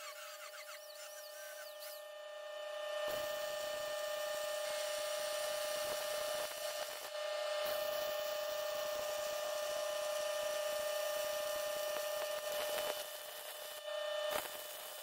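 An angle grinder spins down, then a MIG welding arc crackles steadily for about ten seconds as a bead is run on the scraper's steel, with a short break partway through and a pause near the end. A steady hum runs underneath.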